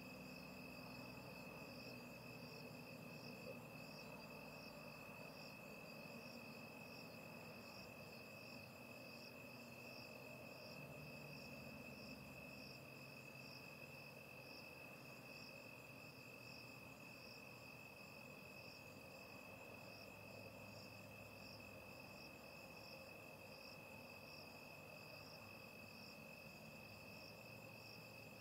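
Faint night insects, crickets chirping in an even pulsing rhythm, over a steady high-pitched tone.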